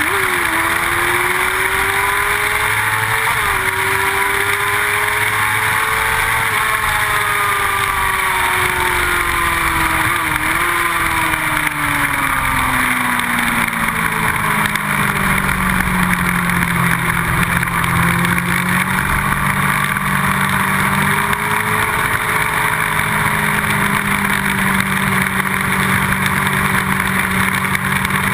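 Motorcycle engine at speed on a track, heard from an onboard camera under heavy wind rush. The engine note climbs with short dips at gear changes, falls over several seconds as the bike slows, then holds steady near the end.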